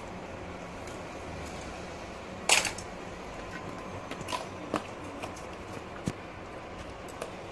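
Plastic toy fishing game pieces knocking together: scattered light clicks and taps, with one louder clack about two and a half seconds in, over a steady background hiss.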